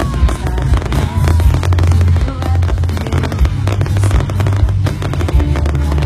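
Fireworks display going off in a dense, rapid string of bangs and crackles.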